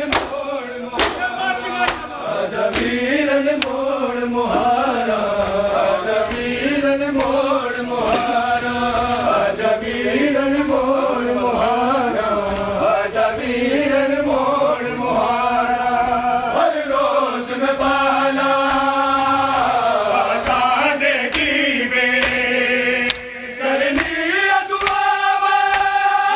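Male mourners chanting a noha (Shia lament) in unison, a slow rising-and-falling melody, with the slaps of matam: hands beating on bare chests. The slaps are clearest in the first few seconds.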